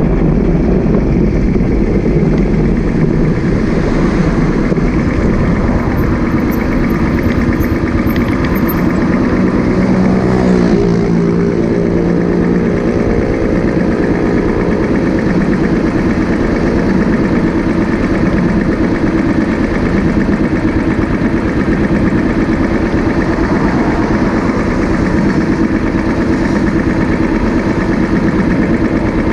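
Motorcycle engine running with wind rumble on the microphone. About ten seconds in its pitch falls as the bike slows, and it settles into a steady idle while the bike stands still.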